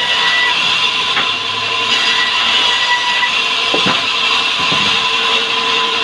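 Band sawmill running with a steady whine, its blade ripping a board of salam (Indonesian bay) hardwood as it is fed through. A short knock comes about four seconds in.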